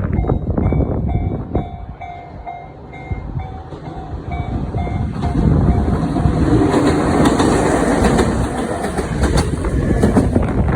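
Japanese level-crossing warning bell dinging at about two strikes a second while trains pass. A train's rumble fades in the first two seconds, then a second train builds from about five seconds in, louder, with wheels clicking over the rail joints and drowning the bell.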